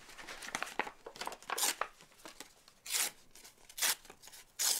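Hands handling crinkly material at a work table: a few short rustling, tearing-like sounds, roughly a second apart.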